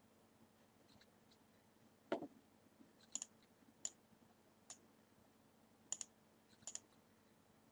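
Computer mouse button clicks over quiet room tone: a duller knock about two seconds in, then a string of sharp clicks, several in quick pairs like double-clicks.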